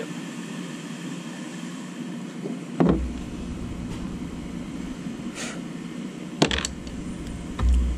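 Handling knocks on the kayak's plastic deck as a cordless drill is picked up to drive a screw: three sharp knocks with deep thumps, about three seconds in, about six and a half seconds in, and near the end, over a steady background hum.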